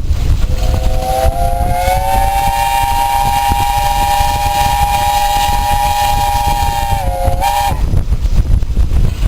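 Steam locomotive whistle blown in one long, loud chord of several tones. It starts about half a second in, rises slightly in pitch, holds steady, then dips and briefly lifts before cutting off about seven seconds later, over a low rumble.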